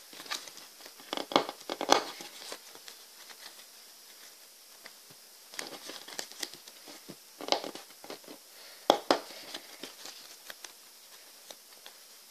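Origami paper being folded and creased by hand into a 3D origami unit: crisp crinkling and rustling in three spells, about a second in, around six seconds and around nine seconds, with quieter paper handling between.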